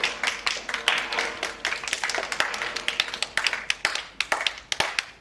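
A small audience clapping, many irregular sharp claps a second, for a place being announced in a prize-giving.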